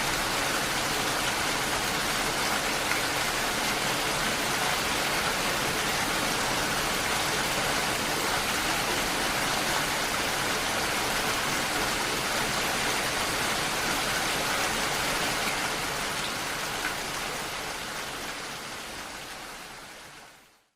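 Steady rain, an even hiss of falling water that fades out over the last few seconds.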